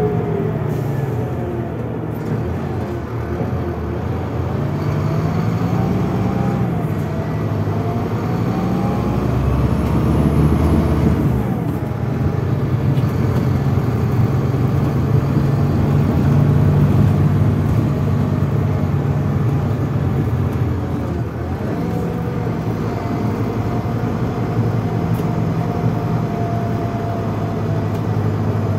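Scania DC9 Euro 6 five-cylinder diesel engine of a Scania K320IB coach running under way. Its note rises and drops several times as the Scania Opticruise gearbox changes gear.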